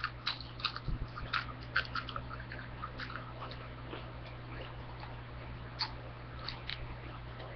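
Chips being bitten and crunched close to the microphone: a quick run of crisp crunches over the first few seconds, then slower, scattered chewing.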